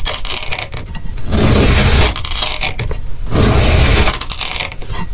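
A knife blade slicing down through a molded block of kinetic sand, a crunchy scraping with each cut. Several cuts come one after another, with short pauses between them.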